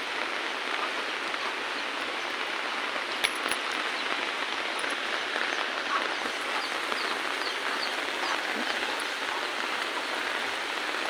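Steady rain falling on garden foliage and netting, an even hiss throughout. A single sharp tick about three seconds in, and a short run of faint high chirps past the middle.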